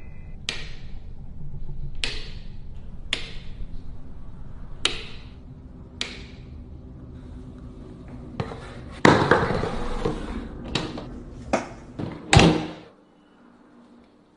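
A series of sharp knocks or bangs, one every second or so, then a louder, denser stretch of clattering with two heavy bangs, cutting off to near silence near the end.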